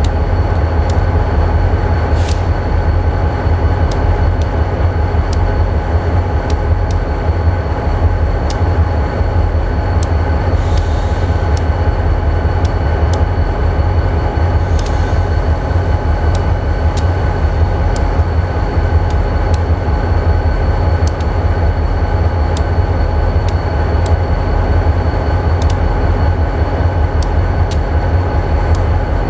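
Freight train rolling past: a steady heavy rumble with a faint steady whine and repeated short clicks of wheels over rail joints.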